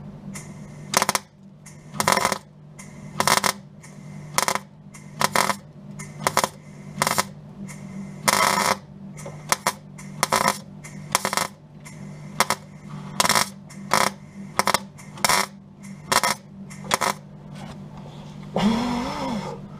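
MIG welder laying weld in short bursts, about one a second, with a couple of longer runs, over a steady low hum. The welder is turned right down to fill a hole drilled through the wing lip bit by bit, welding overhead.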